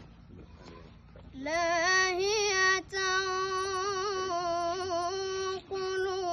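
A boy chanting the Quran from memory in melodic recitation, drawing out the word "lāhiyatan" in long held notes. It starts about a second and a half in, with a short wavering ornament soon after, and there are brief breaths near the middle and shortly before the end.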